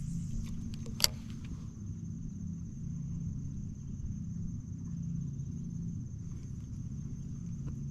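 Electric trolling motor humming steadily, with a thin high whine over a low drone. A single sharp click about a second in.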